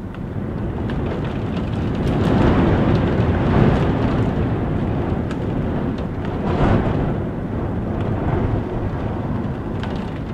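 Strong gust of wind buffeting a house, heard from indoors: it swells in over the first couple of seconds, surges twice near the middle, then eases off near the end. Rain ticks faintly against the window through it.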